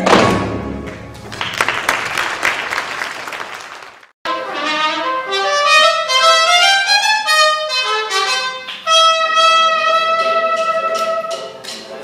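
About four seconds of applause, then after a cut a trumpet plays a slow melody with long held notes, accompanied by keyboard.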